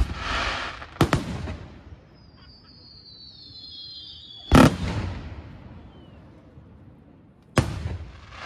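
Fireworks display: aerial shells bursting with about four sharp bangs, each followed by a hissing tail. Several high whistles glide slightly downward just before the loudest bang, about halfway through.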